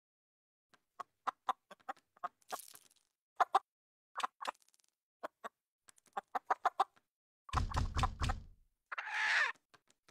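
Animated rooster pecking at scattered seeds on a hard floor: an irregular run of sharp beak taps, then a heavier thump about seven and a half seconds in and a short squawk near the end.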